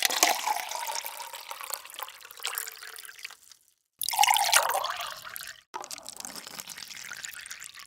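Water pouring or running in three short separate takes, splashing with a pitch that slides downward in the first two.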